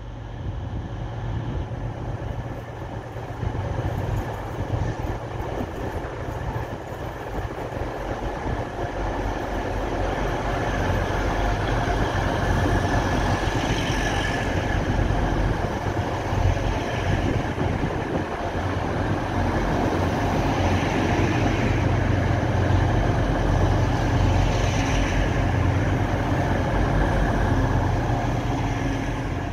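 East Midlands Railway Intercity diesel multiple unit running past at low speed, its underfloor diesel engines giving a steady low rumble with wheel-on-rail noise. It grows louder over the first ten seconds or so and then stays loud as the carriages go by.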